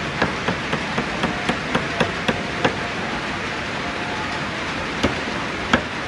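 A quick run of sharp knocks, about four a second for two and a half seconds, then two single knocks near the end, over a steady hiss of rain.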